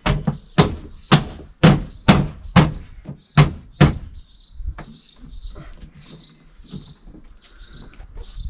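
The plastic inner trim cover of a Nissan Qashqai's tailgate being pushed and struck by hand to snap its clips into place: about nine sharp knocks, roughly two a second, over the first four seconds, then it goes quieter.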